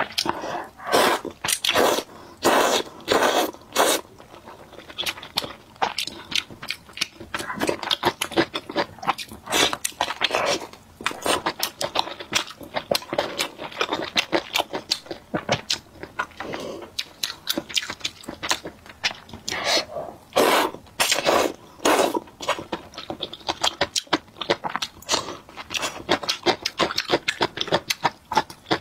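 A person slurping thick noodles from a bowl of broth in several bouts of quick, noisy sucks, with wet chewing between.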